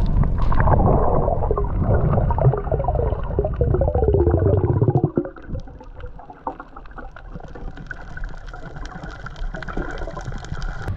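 Muffled underwater rumbling and gurgling of water, loud for about five seconds and then dropping suddenly to a quieter hiss with faint clicks.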